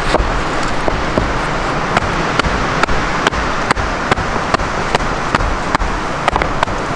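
Flat stones knocking and clacking against each other as they are set and shifted into a dry stone wall: many short sharp knocks, a couple a second, over a steady rushing noise.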